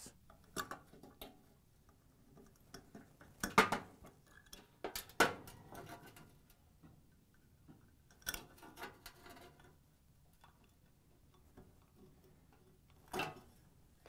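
Scattered light clicks and metal taps as a flat-blade screwdriver works the igniter wire terminals off gas burner heads and the burner heads are handled. The sharpest clicks come about 3.5, 5, 8 and 13 seconds in.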